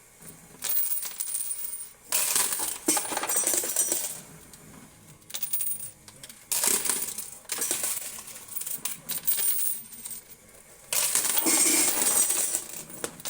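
Quarters clinking and clattering in a coin pusher game, coming in repeated bursts of one to two seconds with short lulls between them.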